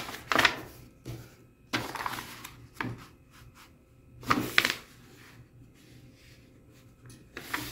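A sheet of paper being folded over by hand and creased flat: several short rustling swishes, the loudest about half a second in and again around four and a half seconds.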